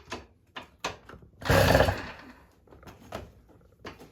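A Tomos A35 moped being kicked over by its pedals against compression, making a run of clunks and knocks from the pedal and starting mechanism. There is one loud rushing burst about a second and a half in. The engine turns over hard and rough.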